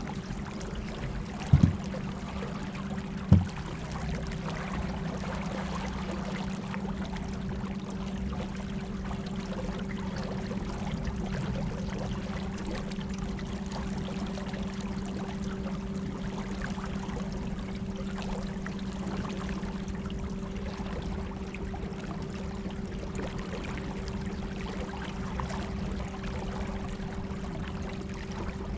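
Electric trolling motors running with a steady hum over the sound of moving water, with two short knocks about one and a half and three seconds in.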